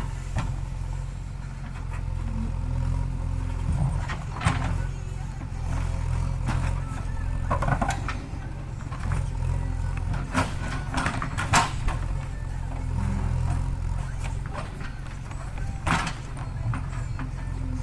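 JCB 3DX backhoe loader's diesel engine running steadily under load while it digs, with several sharp metal clanks and knocks from the bucket and arm.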